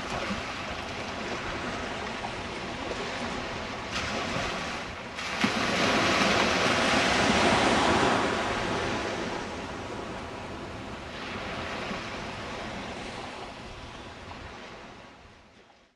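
Surf breaking and washing up the beach, with wind on the microphone. One wave swells loudest about a third of the way in, then the wash eases off.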